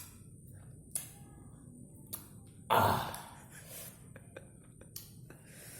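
A person's loud breathy sigh about three seconds in, amid faint mouth clicks and smacks from eating sour kaffir lime pulp.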